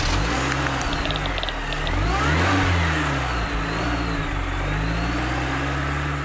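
Car engine revving, used as the sound effect of a logo intro: the pitch rises to a peak about two and a half seconds in, falls back, and then holds at a steady run. A few light clicks come in the first couple of seconds.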